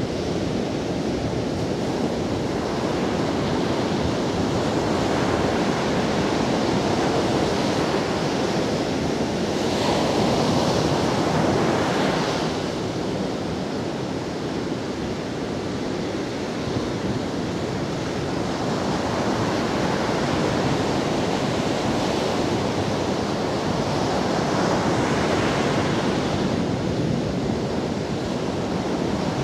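Ocean surf breaking and washing up a sandy beach: a steady rush of water that swells louder about ten seconds in and again near the end.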